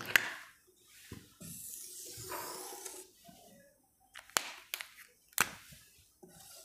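Felt-tip marker squeaking across a whiteboard in one long stroke, then a few sharp clicks as the markers are handled.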